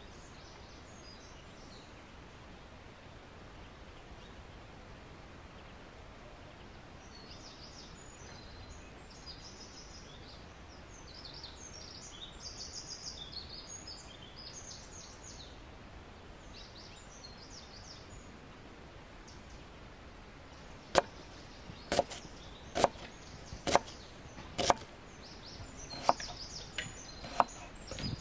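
Birds chirping over a steady background hiss. About three quarters of the way in come sharp knife chops on a wooden cutting board, roughly one a second, as onion is sliced.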